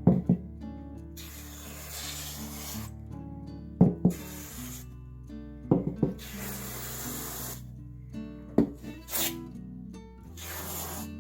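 Insulating spray foam hissing from a can in repeated bursts of one to two seconds, with a few sharp knocks in between, over steady background music.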